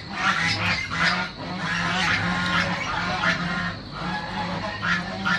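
Domestic poultry calling, many short calls in quick succession.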